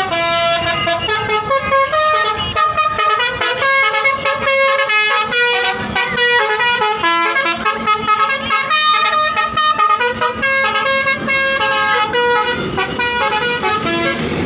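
Tourist bus's 'basuri' telolet horn, a multi-trumpet air horn, playing a quick tune of short stepped notes.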